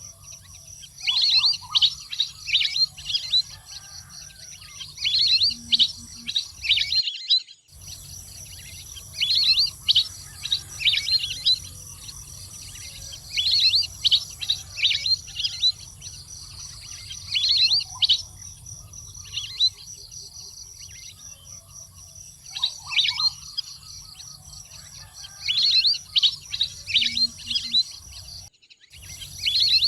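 Wild duck calls: bursts of quick, high, whistled chirps every couple of seconds over a faint steady background, with the track cutting out briefly twice.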